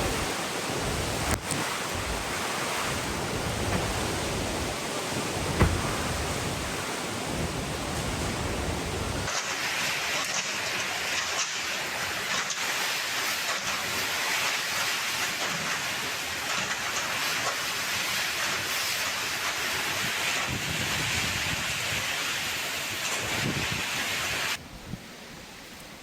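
Typhoon wind and rain: a loud, dense rushing noise, with wind buffeting the microphone. About nine seconds in, the sound turns thinner and hissier, and near the end it drops sharply in level.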